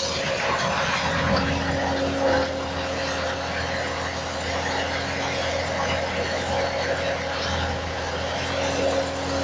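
Skid steer engine running steadily at working throttle, a constant mechanical hum.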